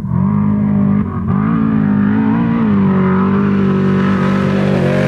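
Spec trophy truck's engine running hard as the truck drives past at speed, its pitch dipping briefly a couple of times about a second in, then holding steady as it comes closer.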